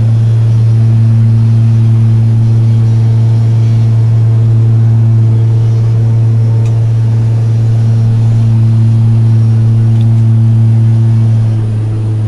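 Charter aircraft's engines droning steadily, heard from inside the cabin: one deep, even hum with fainter overtones above it. It eases off slightly near the end.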